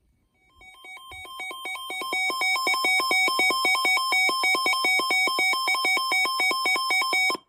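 Weather alert radio's warning alarm: an electronic tone switching rapidly between two pitches, several times a second. It swells in volume over the first couple of seconds, holds steady, then cuts off abruptly, signalling that a warning is about to be broadcast.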